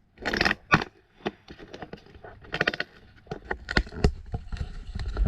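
Irregular handling noises, a strap being pulled tight and fastened: uneven bursts of rustling and scraping with sharp clicks and knocks between them.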